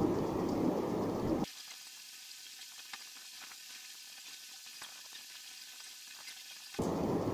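Steady crackling noise, loud for about the first second and a half, then faint with scattered light clicks until it comes back loud near the end.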